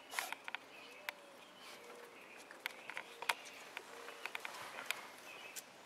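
Faint outdoor ambience with distant birds chirping, broken by scattered sharp clicks and taps.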